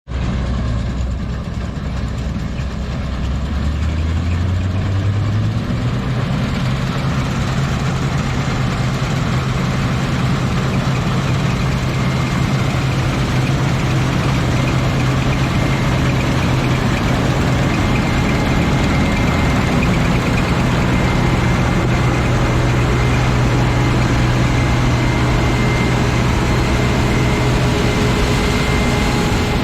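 Claas Lexion 420 combine harvester's diesel engine rising in pitch over the first five or six seconds as it revs up, then running steady at working speed under a dense mechanical whirr with a faint high whine.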